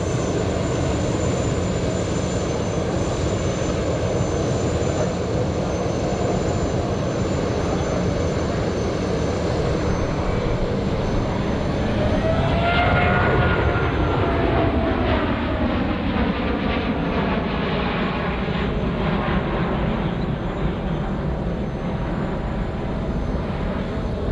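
Jet noise from the Boeing 777-9's twin GE9X turbofan engines as it flies a display pass. About halfway through the sound swells, and the engine whine slides down in pitch as the aircraft goes past and climbs away.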